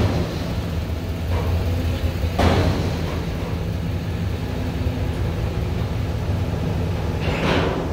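Steady low engine drone, with three short rushes of noise: one at the start, one about two and a half seconds in and one near the end.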